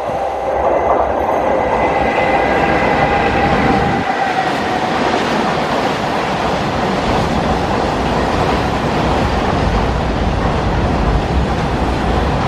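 WAG-7 electric locomotive hauling a BOST HS open-wagon freight train past at speed. A whine from the locomotive fades over the first four seconds or so, then the wagons roll past with a steady rumble of steel wheels on rail.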